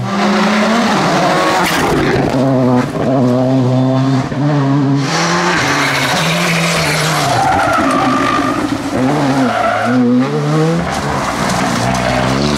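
Rally cars driven flat out on a tarmac stage, one after another: engines revving hard, the pitch climbing and dropping again and again through gear changes, with tyres skidding and squealing through the corners.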